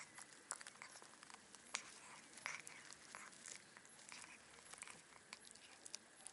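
A black cat chewing and crunching on a fish: a run of quick, irregular wet crunches and crackles as it tears at the fish and gnaws it.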